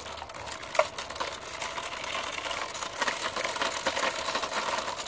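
Kick scooter with large 205 mm wheels rolling over rough, bumpy asphalt: a continuous fast clatter and rattle, with a sharper knock about a second in.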